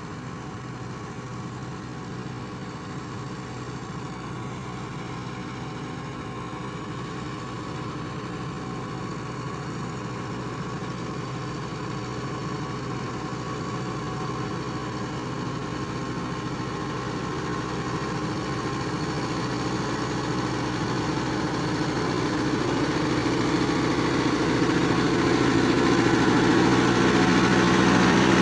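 Kubota MU5502 tractor's diesel engine running steadily as it pulls a super seeder, growing steadily louder as the tractor comes close.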